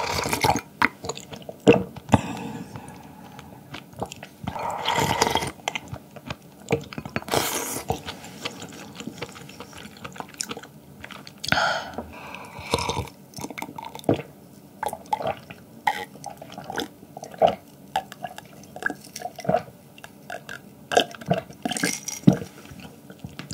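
Close-miked eating sounds: chewing with many wet mouth clicks, and a few longer wet slurps.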